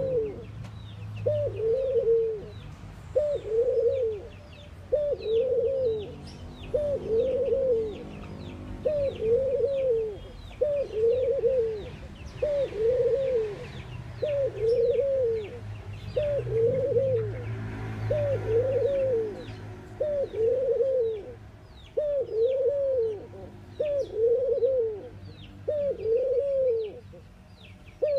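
Caged collared dove cooing over and over, a low coo about once a second, each rising briefly and then falling away. Faint chirping of small birds in the background.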